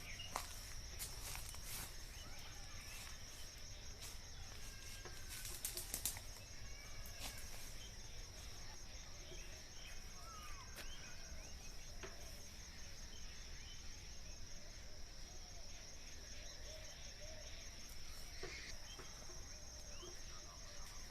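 Outdoor ambience of a steady high-pitched insect trill with scattered short bird chirps. A few sharp crackles, like twigs or dry leaves underfoot, come in the first six seconds.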